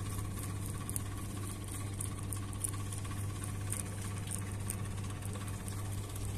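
Rabbit chewing a green leaf, a quick run of small, crisp crunching ticks, over a steady low hum.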